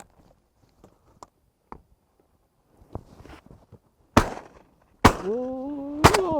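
Three shotgun shots, about a second apart, starting about four seconds in, with faint clicking before them. A man's drawn-out "Ooh" starts after the second shot and carries on through the third.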